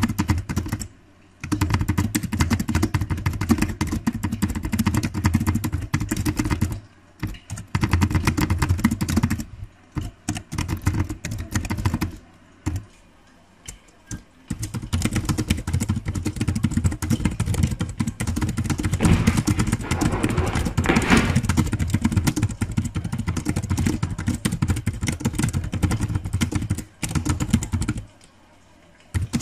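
Rapid typing on a thin low-profile computer keyboard: a dense run of key clicks broken by several short pauses of a second or two.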